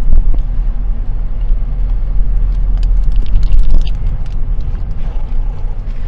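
Low, steady car rumble heard inside the cabin, with a few faint small clicks around the middle.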